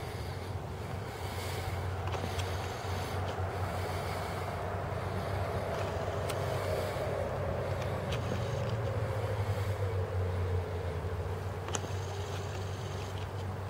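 Steady low hum of a motor vehicle engine running nearby, with a passing vehicle that swells in the middle and slowly drops in pitch as it goes by. There are a few faint clicks.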